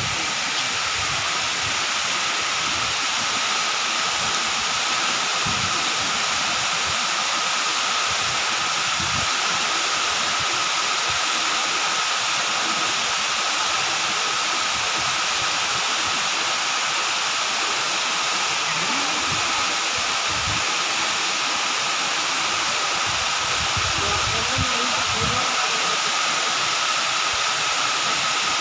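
Tall waterfall falling down a rock face into a pool: a steady, unbroken rush of falling water.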